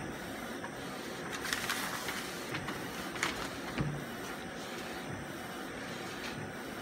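ArtisJet UV flatbed inkjet printer running, its print-head carriage sweeping back and forth across the bed with a steady mechanical hiss. A few sharp clicks come between about one and four seconds in.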